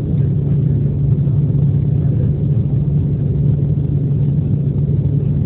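Steady low rumble of a jet airliner's turbofan engines and airflow heard inside the passenger cabin, on approach at low altitude.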